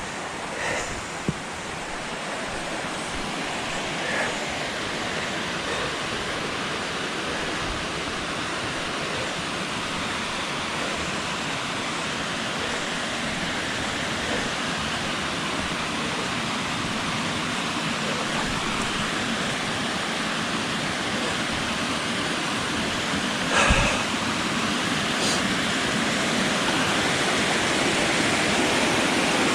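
Waterfall rushing: a steady water noise that grows gradually louder, with a single brief knock about three quarters of the way through.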